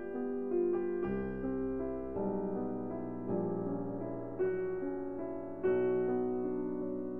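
Slow background piano music, with chords and low bass notes struck about once a second.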